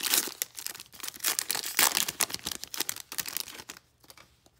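Foil wrapper of a 2021 Playoff football card pack being torn open and crumpled by hand: dense crinkling and crackling that dies away about four seconds in as the cards come out.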